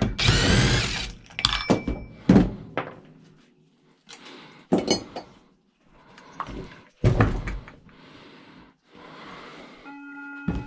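Loose metal parts and tools rattling and clinking on a workbench while a chainsaw is taken apart for scrap: a dense rattle in the first second, then scattered single knocks. A steady electronic beeping tone starts near the end.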